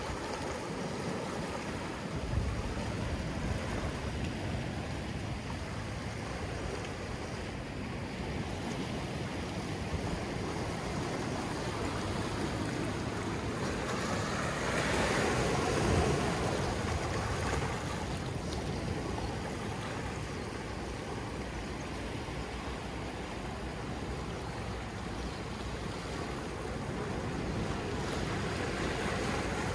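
Small ocean waves lapping and washing in over lava rocks at the shoreline, one louder wash rising and falling about halfway through.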